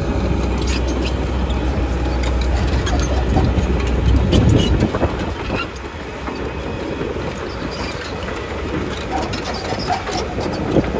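Kobelco SK210LC hydraulic excavator's 5.1 L four-cylinder diesel running as the machine travels on its steel triple-bar tracks over gravel, the track links clanking and rattling. The deep engine rumble eases about five seconds in.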